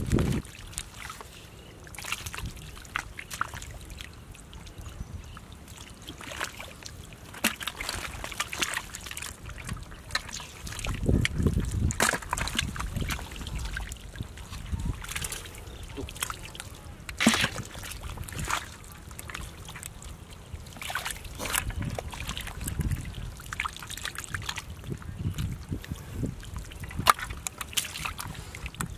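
Hands and bare feet working in soft, wet mud: irregular wet squelches, slaps and small splashes.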